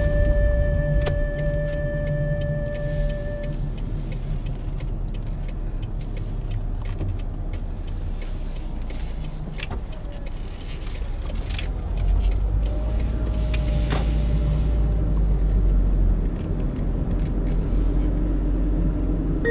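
Car cabin noise while driving: a steady low rumble of engine and tyres with scattered small clicks and rattles, getting louder a little past the middle.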